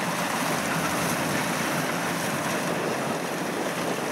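Steady rush of wind on the microphone, mixed with the running of a Kubota DC-93 rice combine harvester cutting.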